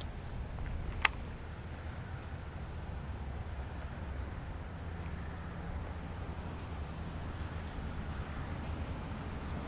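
Steady low rumble of wind on the microphone, with one sharp click about a second in and four faint, short, high chirps spread through the rest.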